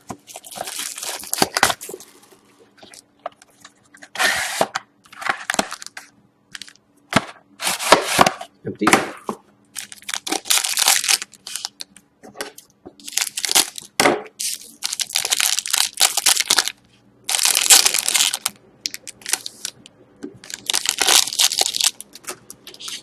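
A sealed trading-card box and its packs being torn open by hand: repeated bursts of crinkling wrapper and tearing.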